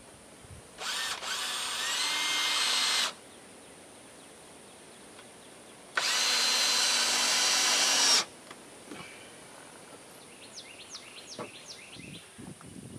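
Cordless drill driving screws into a wooden floor frame, in two runs of about two seconds each. The first run rises in pitch as the motor speeds up, then holds steady.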